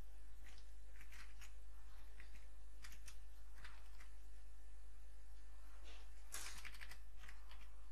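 Scattered computer keyboard keystrokes, with a quick run of clicks about six and a half seconds in, over a steady low hum.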